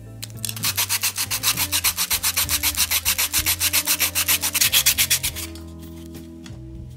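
Bare die-cast metal toy car body rubbed back and forth by hand on a coarse abrasive sanding disc, in quick, even scraping strokes of about seven a second. It starts about half a second in and stops about five and a half seconds in.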